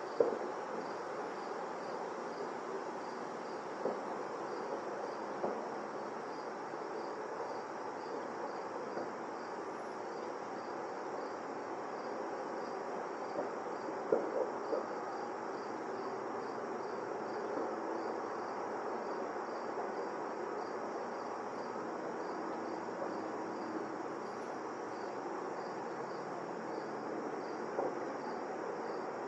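Insects chirping steadily in a fast, even, high-pitched pulse over a low outdoor hum, with a few short knocks.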